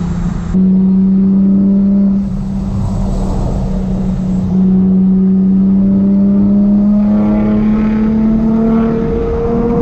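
Supercharged Infiniti G35's V6 engine running as the car drives, a loud steady engine note that shifts in level a few times, then climbs slowly in pitch over the last few seconds as it accelerates.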